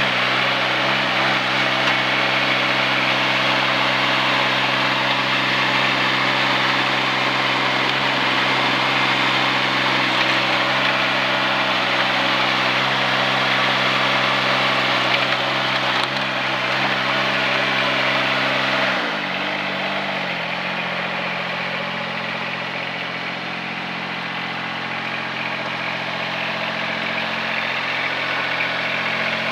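Mini excavator's small engine running steadily at raised speed, then slowing to a lower idle about two-thirds of the way in, the pitch sliding down and the sound getting a little quieter.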